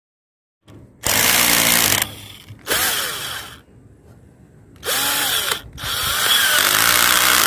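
Electric drill running in four short bursts, its motor speeding up and slowing down with each pull of the trigger, as it drives in the fasteners of the stand's pipe clamps.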